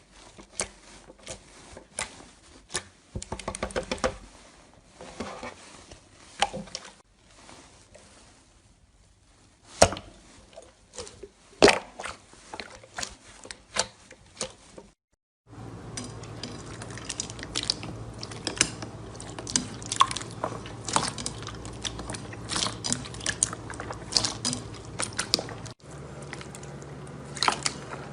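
Slime being squished, pressed and poked by hand, making wet clicks, pops and crackles in uneven flurries. The background changes abruptly twice: it drops out briefly at about 15 seconds, and the hum shifts near the end.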